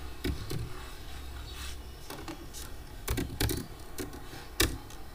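Computer keyboard typing: scattered single keystrokes in small runs, with a sharper click near the end. A steady low hum runs underneath.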